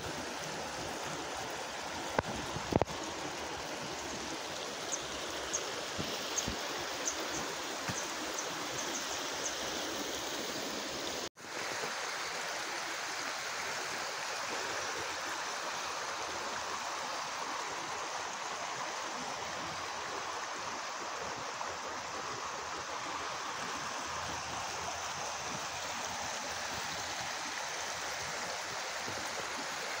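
A river running steadily over rocks, a continuous rushing. A couple of sharp knocks come about two to three seconds in, then a run of faint high ticks, and the sound drops out for an instant about eleven seconds in.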